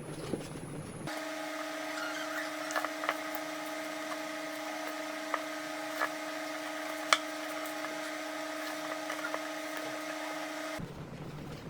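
Small electric power tool running at a steady speed, a constant high hum with scattered light ticks and clicks. It starts abruptly about a second in and stops abruptly near the end.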